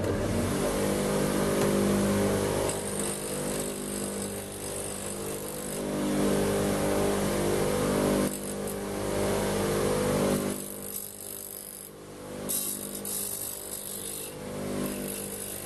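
Bench grinder running with a steady motor hum while the eye of a steel sewing needle is ground off against its stone wheel. A hissing grind comes and goes as the needle is pressed to the wheel.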